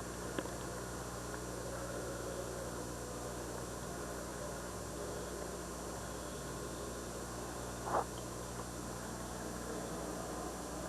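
Steady low electrical hum under a hiss, with one brief sharp sound about eight seconds in.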